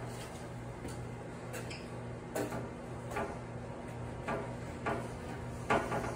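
Irregular light clicks and knocks of new window balance rods being fitted into the side track of an aluminium window frame, about seven of them spaced a second or so apart.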